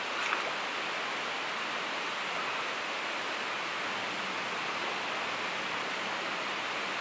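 Steady rushing of a shallow, rocky river's flowing water.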